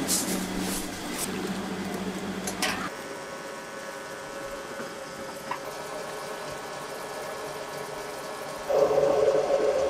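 Rustles and a few sharp knocks as paper-wrapped chicken bundles are handled, then a quieter steady hum. About nine seconds in, a motor-driven clay mixer starts up loud, running with a steady drone as its paddle churns wet mud.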